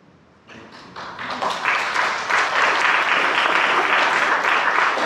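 Congregation applauding: after a brief hush, scattered claps start about half a second in and swell within a second into steady, dense clapping.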